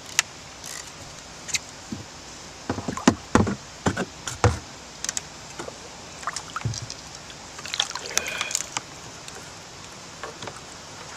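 Knocks and thumps against a kayak as the angler handles the rod and boat while fighting a snagged fish. The heaviest cluster comes about three to four and a half seconds in, with lighter clicks scattered throughout.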